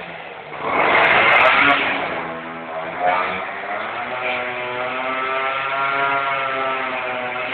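Two-stroke moped engine revved hard while its rear wheel spins against the concrete floor in a smoking burnout. A loud burst comes about a second in, then the engine note climbs over a few seconds and holds at high revs.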